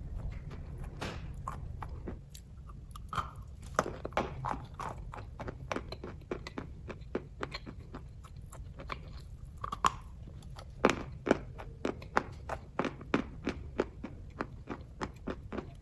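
Close-up chewing of kaju katli, a dense cashew fudge: irregular wet mouth clicks and smacks, coming thicker and faster from about eleven seconds in.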